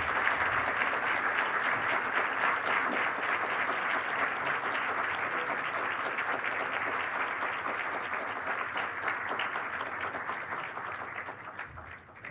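Audience applauding, a dense, steady clapping that tapers off near the end.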